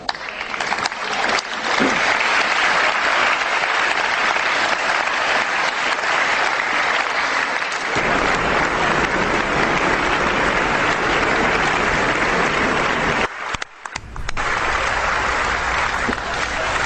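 Audience applauding: steady, dense clapping that drops out briefly about thirteen and a half seconds in and then carries on.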